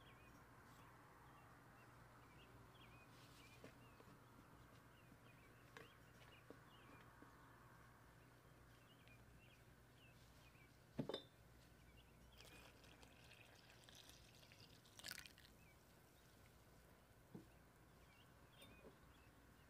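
Near silence with quiet bowl sounds: a single sharp knock about eleven seconds in, then a soft pour of milk into flour in a glass mixing bowl for a couple of seconds. Faint high chirps sound throughout.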